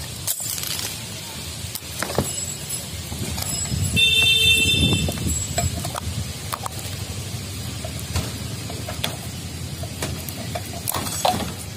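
Scattered clicks and knocks of PVC conduit pipe being pushed into taped fan boxes and knocking against steel reinforcing bars, over a low background rumble. About four seconds in, a louder steady tone sounds for about a second and a half.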